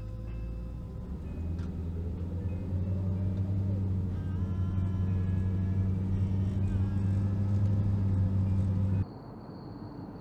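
Steady low drone of engine and road noise inside a moving car's cabin, growing slightly louder. It cuts off abruptly about nine seconds in, giving way to a quieter outdoor hush with a thin, steady high-pitched tone.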